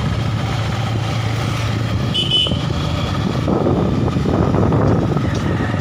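Vehicle engine running steadily while moving, with road and wind noise, heard from on board. A short high-pitched beep sounds about two seconds in.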